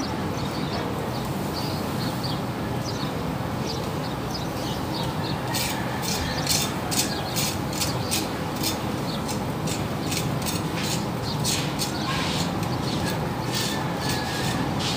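Metal tongs clicking and scraping against the steel grate of a charcoal grill as round scad are turned, the sharp clicks coming irregularly from about five seconds in over a steady background noise.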